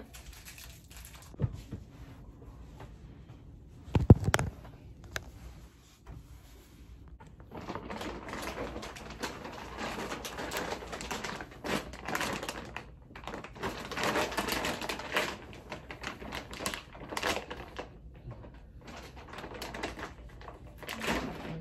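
Plastic packaging crinkling and rustling as it is handled, in irregular bursts from several seconds in. Before that come a couple of sharp knocks, the loudest about four seconds in.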